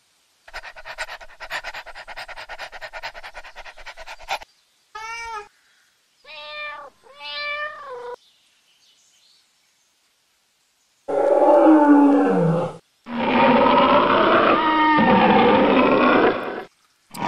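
A dog panting rapidly, then a domestic cat meowing three times, then a lion roaring in two long, loud calls that fall in pitch.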